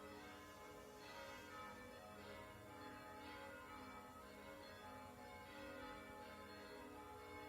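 Church bells ringing faintly: several bells struck again and again, their tones ringing on and overlapping.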